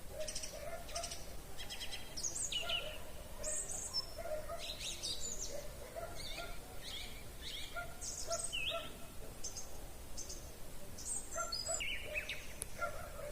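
Several songbirds singing at once: short high chirps and trills one after another, over a lower short note that repeats about every half second.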